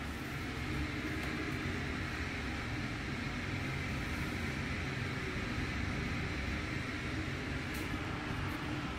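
Steady rushing hum of room ventilation, with no clear events.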